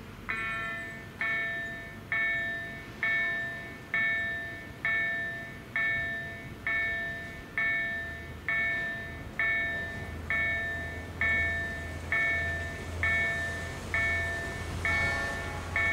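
Railway level-crossing warning bell, a KLD-4103 electronic acoustic signal, starting just after the crossing activates and striking a ringing, decaying tone about once a second, warning that a train is approaching. A low rumble builds underneath from about ten seconds in.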